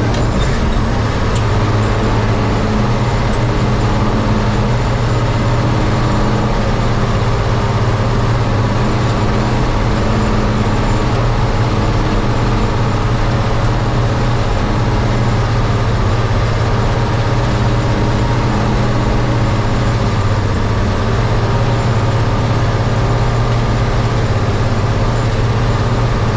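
Multifuel diesel engine of an M51 5-ton 6x6 military dump truck running steadily as the truck is driven.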